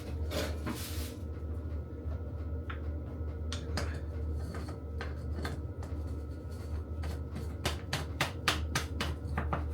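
Kitchen handling noises: scattered light clicks and taps that quicken into a run of rapid clicks near the end, over a steady low hum.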